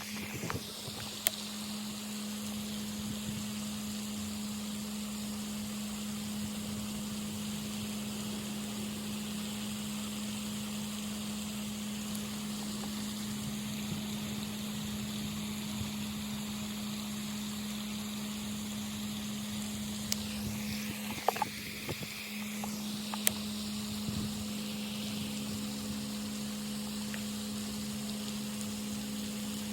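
A steady low mechanical hum with outdoor background hiss, broken by a few sharp clicks.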